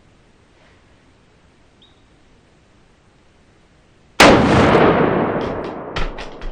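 A single shotgun shot about four seconds in, very loud and sudden, its sound trailing away over a couple of seconds with a few sharp knocks after it.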